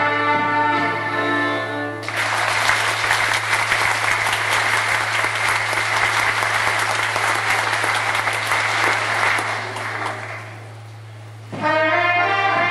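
Folk band of singers, accordions and trumpet finishing a song, then audience applause for about eight seconds that fades out. After a short pause the accordions and brass start the next tune near the end.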